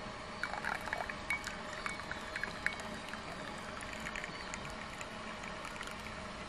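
Hot water running from a samovar's tap into a glass of tea, with a few light clicks in the first few seconds.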